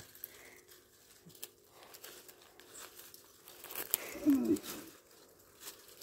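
Scattered small snaps, crinkles and rustles of bay laurel leaves and dry twigs being picked off by hand. A brief voice sounds about four seconds in.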